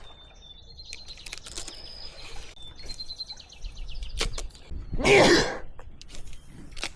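A songbird singing fast, high trills of rapidly repeated notes, with a few clicks and a short, louder whoosh of noise about five seconds in.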